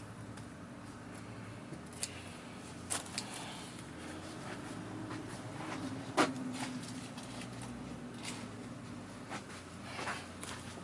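Scattered light clicks and knocks of the vacuum's parts being handled during servicing, the loudest a sharp knock about six seconds in, over a steady low hum.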